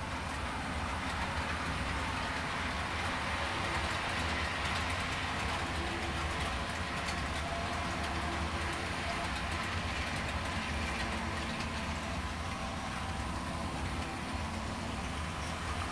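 Model train running steadily up a helix, a single locomotive pulling fifteen weighted cars and a lighted caboose, with the wheels running on the rails. The train is loaded to about the limit of what one locomotive can pull.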